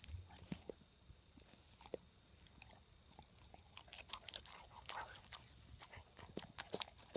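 Rottweiler chewing and crunching her snacks: irregular short crunches and clicks, sparse at first and coming thicker in the second half.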